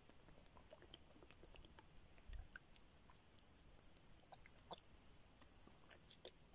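Near silence, with faint scattered small clicks and ticks as a man drinks water from a plastic bottle.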